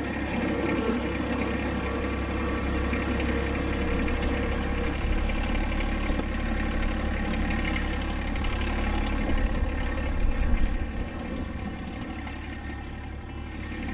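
A motor engine running steadily at low speed.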